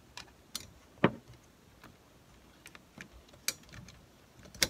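Scattered small clicks and knocks, the loudest about a second in, from plastic and metal parts of a Smith Corona Corsair Deluxe typewriter being handled and fitted while the margin bar and case top go back on.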